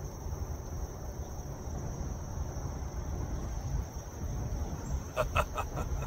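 Steady high drone of insects over a low rumble; about five seconds in, a quick run of sharp clicks.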